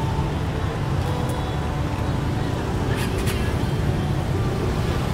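Steady rumble of road traffic mixed with the voices of a crowd, with a couple of faint clicks about three seconds in.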